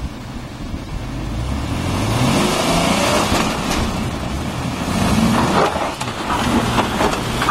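Land Rover Discovery 3 engine revving hard under load up a steep rutted dirt climb, its pitch rising over the first few seconds. The tyres spin and throw dirt, adding a noisy rush with scattered crackles of grit.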